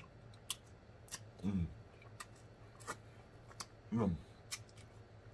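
Close-miked mouth sounds of a person eating sauce-covered corn on the cob: wet lip smacks and mouth clicks scattered throughout, with two short falling hums of enjoyment, about a second and a half in and again about four seconds in.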